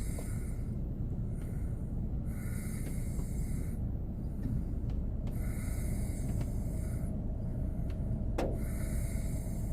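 A man snoring in his sleep inside a car, a rasping snore on each breath every two to three seconds, over a steady low rumble. A single sharp click about two thirds of the way through.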